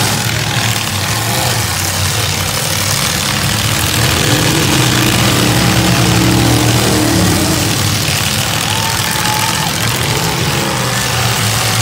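Several full-size demolition derby cars' engines running and revving together, a dense, steady, loud engine noise whose pitch rises and falls roughly four to seven seconds in.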